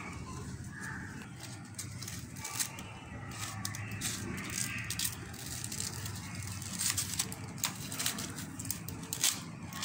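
Dry corn husks crackling and tearing as they are stripped by hand from ears of corn, in scattered crisp snaps that come more often near the end.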